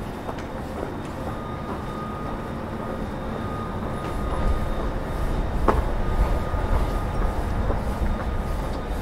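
Train running past, a low rumble that grows louder about four seconds in, with a thin steady squeal in the first half and a few sharp clicks.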